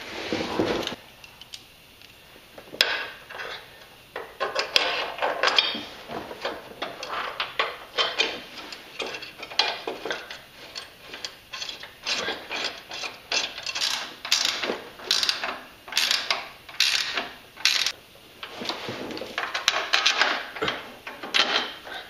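Hand ratchet clicking in repeated runs of strokes, with metal clinks and knocks, as bolts are run in to hold a steering-gearbox reinforcement plate to the frame.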